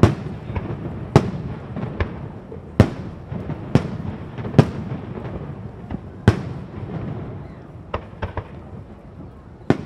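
Fireworks display shells bursting in a string of about ten sharp bangs at irregular spacing, with a low rumble carrying on between them.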